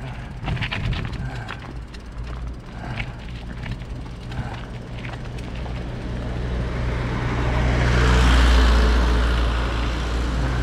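A motor vehicle approaching and passing close by, its engine hum dropping in pitch as it goes past; its rush of engine and tyre noise is loudest about eight seconds in and then eases off.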